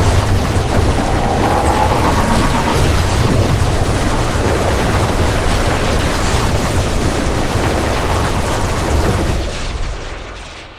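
Loud rumbling blast sound effect: a dense, steady wash of noise with a heavy low end that fades out near the end.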